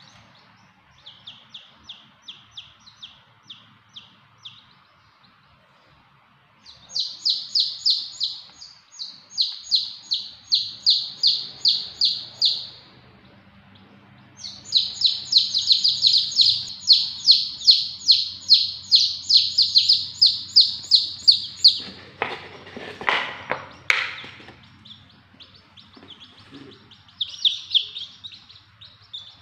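Baby chicks peeping: fast runs of high, repeated peeps, about five a second, in bursts with short pauses between. A brief rough noise breaks in about three-quarters of the way through.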